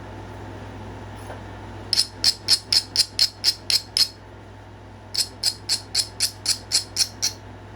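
An abrader rubbed back and forth along the edge of a knapped stone point in two quick runs of about nine strokes each, roughly four a second, grinding the edge before pressure flaking. A steady low hum runs underneath.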